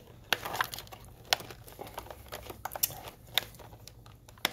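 Rubber grommet on an accessory cord being forced by hand into a hole in a motorcycle's plastic bodywork: scattered sharp clicks and rubbing of rubber on plastic, about half a dozen clicks spread over the few seconds.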